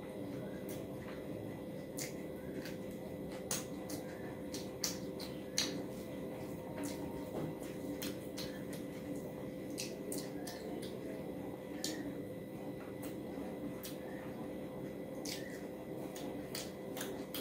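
Close-up eating sounds: irregular wet clicks and smacks from chewing rice and curry and from fingers mixing the rice, over a steady hum.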